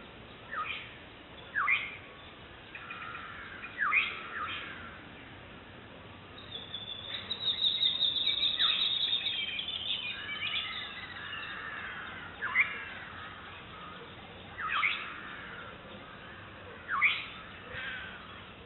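Black-headed (black-hooded) oriole calling to its chick: short, sharp down-slurred calls every second or two, with a louder run of dense chattering notes in the middle.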